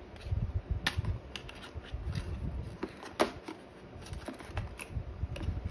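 Packaging being handled: irregular clicks, taps and rustles as the earbud tray is lifted out of its box, with a few sharp clicks, the loudest about three seconds in.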